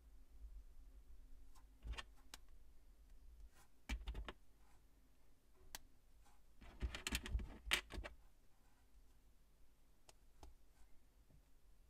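Small plastic Plus-Plus building pieces clicking together as they are pressed into place by hand: scattered light clicks, with a quick run of clicks about seven seconds in.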